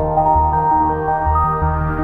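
Instrumental relaxation music: held notes over a bass line that changes note every half second or so.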